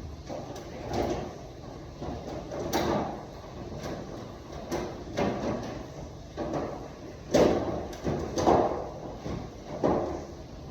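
Parts of a wall-mounted HVAC unit being handled and fitted back into place: an irregular run of knocks, scrapes and clicks, with a few louder knocks in the second half.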